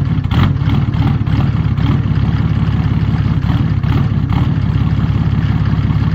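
A 1987 Mercedes-Benz 300TD Turbo's 3.0-litre inline-six turbodiesel idling steadily with a fast, even exhaust pulse, running cold just after a cold start in below-freezing air.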